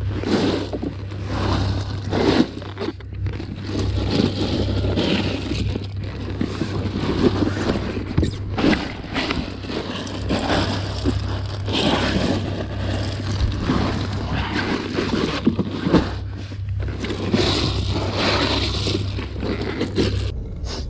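Irregular rustling and scraping with scattered knocks as a large lingcod is handled and packed into an insulated ice bag, over a steady low hum.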